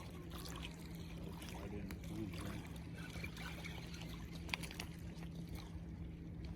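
Boat motor idling with a steady low hum, with a few small clicks over it.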